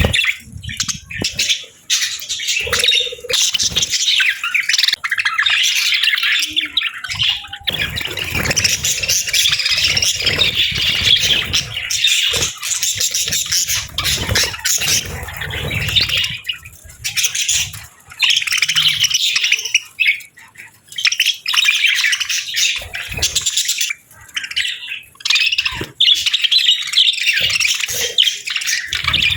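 Several budgerigars chirping and chattering, with brief pauses.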